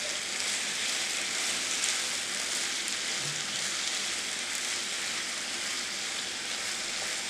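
Green tomato wedges and green chillies sizzling steadily in hot oil in a frying pan while being stirred with a wooden spatula, sautéing until soft.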